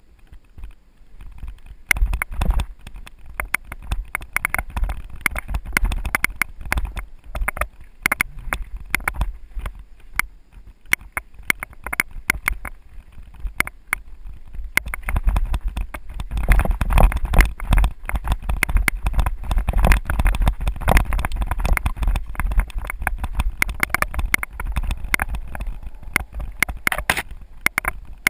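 Mountain bike rattling and clattering over a rough dirt singletrack on a descent: a dense, irregular run of knocks and jolts over a low rumble. It starts about two seconds in and gets louder about halfway through.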